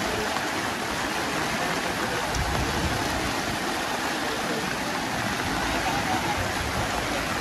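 Floodwater rushing past in a steady, even flow.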